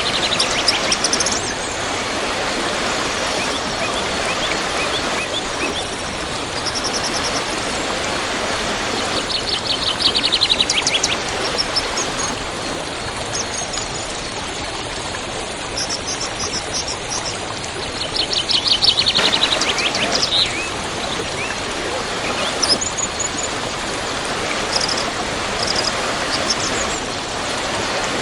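Steady rush of a waterfall, with birds chirping over it: a quick falling trill comes three or four times, about every nine seconds, with short high chirps in between.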